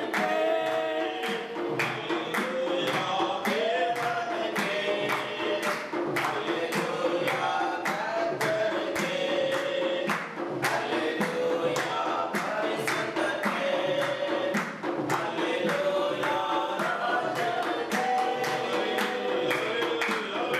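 A small group singing a worship song together, with hand clapping and a handheld frame drum keeping a steady beat.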